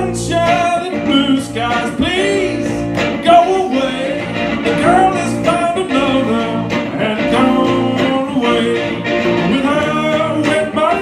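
Two electric guitars, an SG-style and a Les Paul-style, strumming chords through an amplifier in a blues-rock groove, with a man singing lead over them.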